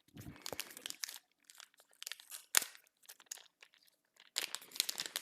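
Packaging being handled and opened by hand: irregular crinkling and crackling with sharp clicks, a single loud snap about two and a half seconds in, and a denser burst of crackling near the end.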